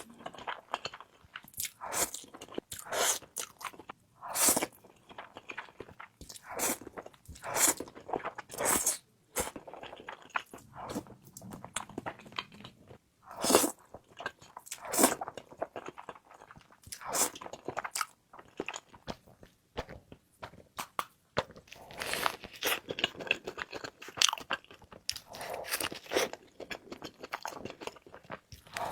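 Close-miked eating: a person biting into and chewing crunchy food, with sharp irregular crunches every second or so.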